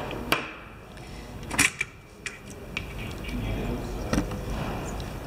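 Five or so sharp metallic clicks and knocks, the loudest about one and a half seconds in, from the metal parts of a Shimano Nexus 3-speed hub being handled during disassembly.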